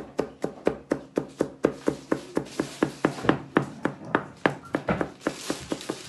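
Chef's knife rapidly chopping garlic on a plastic chopping board: a fast, even run of sharp knocks, about five a second.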